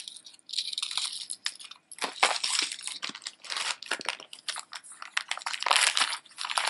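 Thin plastic bag crinkling and rustling in irregular bursts as a necklace is handled and pulled out of it.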